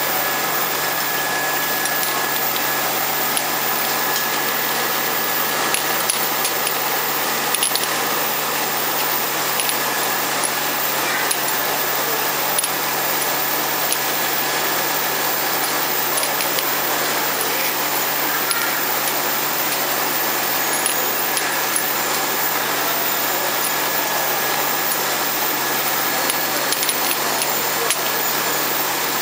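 Vial washing and drying machine running: a steady mechanical noise with a faint high whine, and light clinks of glass vials knocking against each other now and then.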